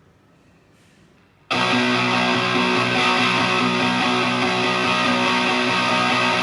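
Electric guitar through a Tone Bender MKII germanium fuzz pedal: after faint amp hiss, a thick fuzzed chord is struck about a second and a half in and rings out steadily.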